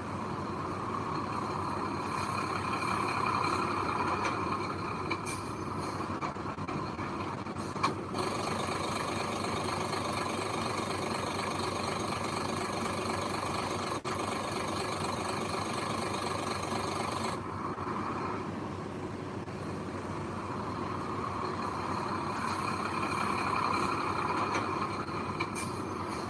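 Heavy diesel earthmoving machinery running steadily, swelling under load twice, with one sharp knock about eight seconds in.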